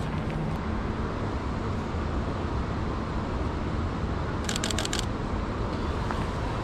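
Steady low outdoor street rumble, with about 4.5 seconds in a rapid burst of about half a dozen sharp clicks: a Canon 90D DSLR's shutter firing in continuous shooting.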